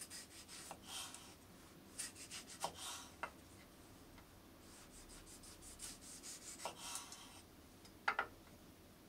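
Knife sawing through tomatoes on a cutting board, in short runs of rapid scratchy strokes, with two sharp knocks about eight seconds in.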